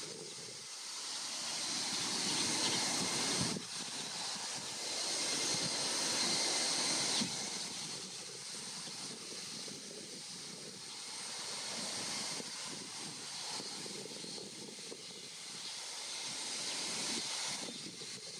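Wind rushing in gusts, buffeting the microphone with a low rumble under a steady high hiss; it swells and falls every few seconds and drops suddenly twice in the first seven seconds.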